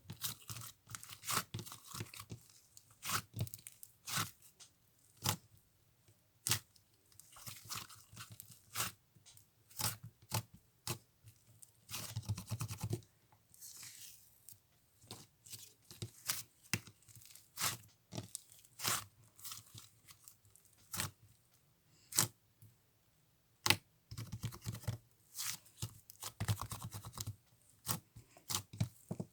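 Gelato slime being squished and stretched by hand: irregular sharp pops and crackles as trapped air bursts, with a couple of longer, denser squishing stretches about halfway through and near the end.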